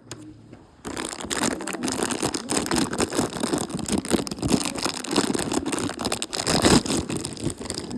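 Plastic toy packaging being handled and torn open: dense crinkling and rattling that starts about a second in and keeps going.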